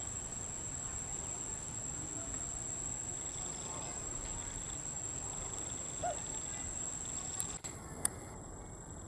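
Insects droning outdoors in a steady, high, even buzz. Near the end the drone cuts out briefly around a sharp click.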